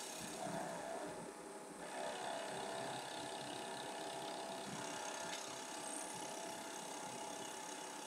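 CNC bed mill's spindle running a 1-inch face mill at about 2000 RPM as it cuts a facing pass across an aluminum block, a steady machining sound.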